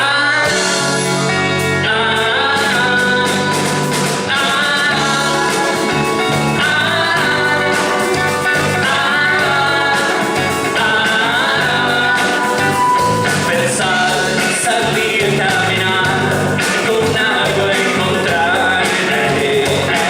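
A band playing a song with sung vocals over a full backing of bass and drums.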